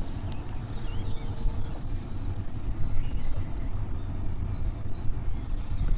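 Wind rumbling on the microphone of a camera carried on a moving bicycle, a steady low noise. A few faint bird chirps come through above it.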